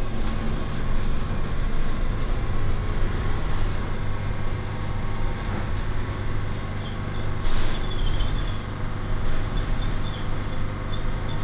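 Cabin of a Scania electric bus under way: a steady low hum and road rumble, with a thin high whine from the electric drive that slowly falls in pitch. There is a short hiss about seven and a half seconds in.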